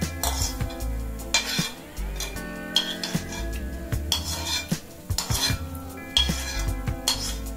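Metal spoon scraping and clinking against a kadai, sweeping dry-roasted coriander seeds and dried red chillies out into a steel bowl, in repeated short scrapes about once a second.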